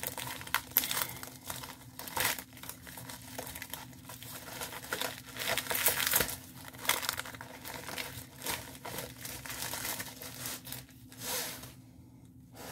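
Clear plastic packaging crinkling and rustling in irregular bursts as it is handled and worked open by hand; it dies down near the end.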